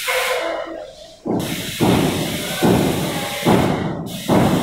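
Airless paint sprayer spraying primer: the hiss from the gun stops for about a second, then resumes, with the pump thudding at each stroke about once every 0.8 seconds.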